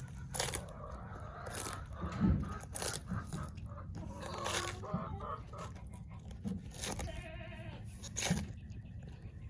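Tortoise biting into romaine lettuce: sharp crisp crunches at irregular intervals. A chicken clucks in the background.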